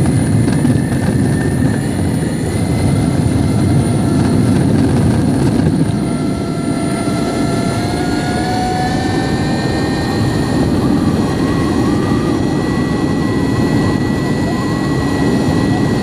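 Metroboard electric longboard rolling fast over coarse asphalt: a loud, steady rumble of the wheels on the road, with a thin motor whine that rises slowly in pitch about halfway through.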